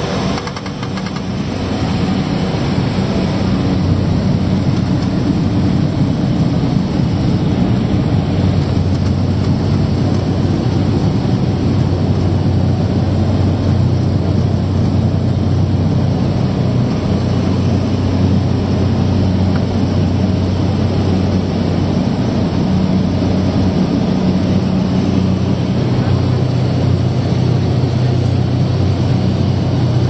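Cessna 208B Caravan's Pratt & Whitney PT6A turboprop heard from inside the cabin, coming up to takeoff power about two seconds in with a rising high whine. It then holds a loud, steady drone through the takeoff run and climb-out.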